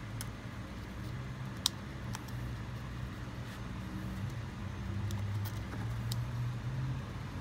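A few small sharp clicks and ticks as fingers work a rubber piston dust boot and its spring ring down over the piston in a Toyota four-piston brake caliper, the sharpest about a second and a half in, over a steady low hum.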